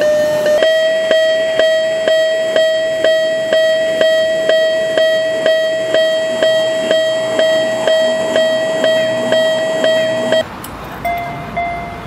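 Miniature Japanese railroad crossing warning bell ringing its 'kan-kan' alarm, a steady ringing tone struck about twice a second. About ten seconds in it gives way to a second, quieter crossing bell with a higher tone.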